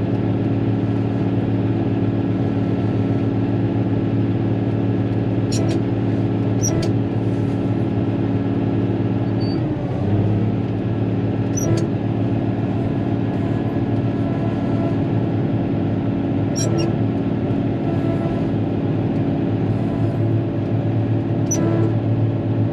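Caterpillar motor grader's diesel engine running steadily under load, heard from inside the cab; its note dips briefly and recovers about ten seconds in. A few sharp clicks sound over it at irregular intervals.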